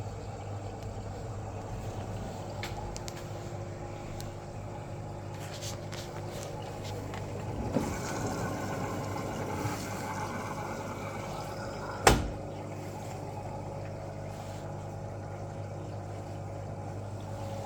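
Washing machine running with a steady low hum, with a few light clicks and one sharp knock about twelve seconds in.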